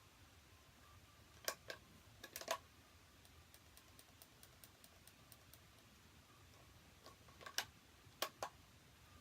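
Sharp, small clicks in two short clusters about six seconds apart, with a run of faint, evenly spaced ticks, about three a second, between them.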